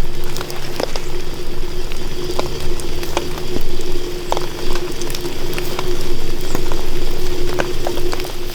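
Food cooking over an outdoor fire: a steady bubbling, sizzling hiss scattered with sharp pops and crackles. A steady low tone runs under it and stops at the very end.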